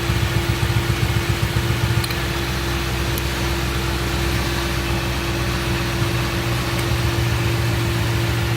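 Hot car engine idling with a plug wire pulled off the coil pack, so one cylinder is not firing; it runs only slightly rougher, "not really that bad". The running is more uneven in the first two seconds, then settles, with a steady hum underneath.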